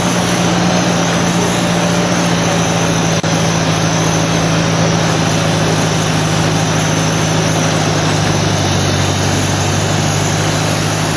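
Ford 641 tractor engine running on wood gas from a front-mounted gasifier, pulling steadily while the tractor is driven along in third gear: an even, unbroken drone.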